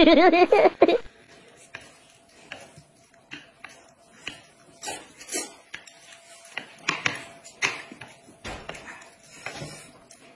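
Eating sounds: scattered short smacks, clicks and slurps from people eating noodles with chopsticks and watermelon with a spoon, a few louder ones in the middle. A voice speaks in the first second.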